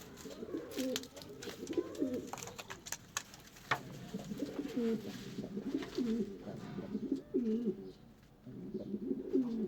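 Homing pigeons cooing, many low rolling calls overlapping one another, with a few sharp clicks among them.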